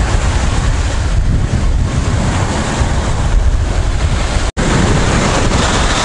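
Strong wind buffeting the microphone over the surf of a stormy sea. The sound cuts out for an instant about four and a half seconds in.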